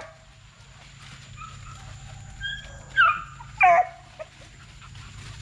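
Young Plott Tan hound barking in short, high yelps that drop in pitch: a faint one about two and a half seconds in, then two loud ones close together about three seconds in.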